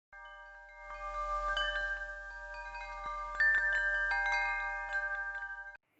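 Chimes ringing: many light metallic strikes whose notes overlap and sustain, building from about a second in and cutting off abruptly near the end.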